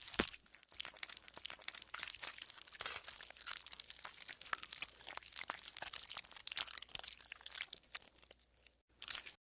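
Green slime squelching and crackling as it is worked, a dense run of small sharp clicks and pops. There is one louder snap just after the start and a brief lull near the end.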